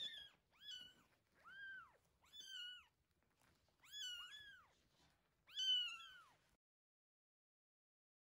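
Week-old kittens mewing, about eight high cries that each rise and fall, some in quick pairs; they stop about six and a half seconds in.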